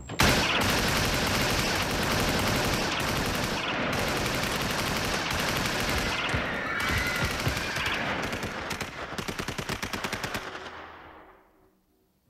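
Sustained rapid gunfire, like a machine gun, running for about ten seconds and then fading away near the end.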